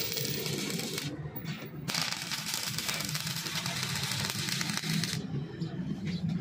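Stick-welding arc crackling as a bead is run on steel tubing, with a short break about a second in; the arc stops about five seconds in.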